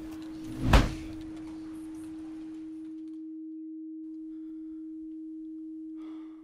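A steady pure tone holds, with one loud, sharp knock about a second in; the background hiss drops away halfway through, leaving the tone alone until it cuts off suddenly at the end.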